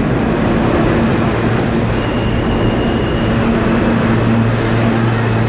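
Inside an NYCTA R68 subway car under way: a loud, steady rumble of wheels on rail with a low hum running under it.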